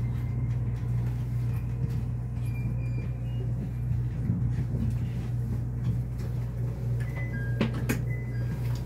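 Steady low hum inside a train carriage as the Resort Asunaro hybrid train comes to a stop and stands at the platform. A few sharp clicks come near the end.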